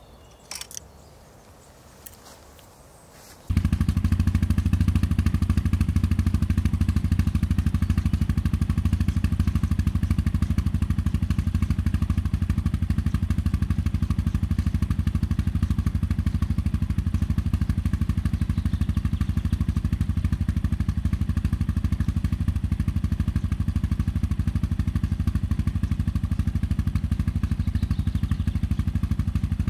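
Yamaha XT660Z's single-cylinder engine running steadily through a Dominator exhaust with the medium dB killer fitted. It comes in suddenly about three and a half seconds in, after a couple of faint clicks.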